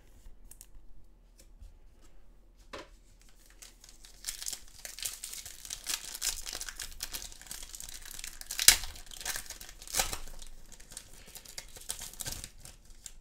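Foil wrapper of a trading card pack crinkling and tearing as it is opened, with two sharp loud rips a little past the middle, about a second apart. Before it starts, a few faint clicks.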